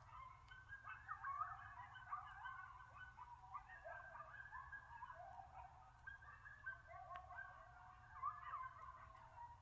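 A pack of coyotes yipping and howling together in a faint chorus of many overlapping, wavering calls.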